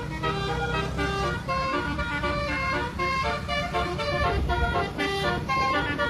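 A bus's basuri horn, a multi-tone telolet air horn, playing a quick melody of changing notes over a steady low engine rumble.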